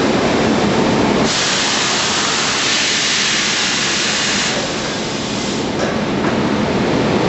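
Sergiani LAS 230 door-frame press at work: a steady hiss of air starts about a second in and cuts off after roughly three seconds, as the clamping heads close on the wooden frame. Constant machine noise runs underneath.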